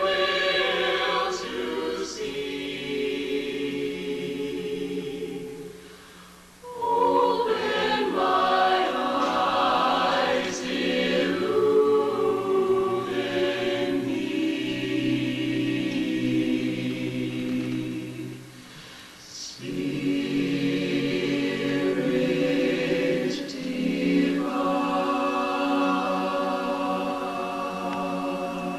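Mixed choir singing a gospel song unaccompanied in harmony, in long held chords, pausing briefly between phrases about six seconds in and again about nineteen seconds in.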